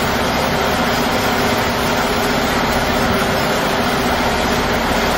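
Airbus A380 jet engines at approach power as the airliner flares just before touchdown. The jet noise is loud and steady, with a faint low hum running through it.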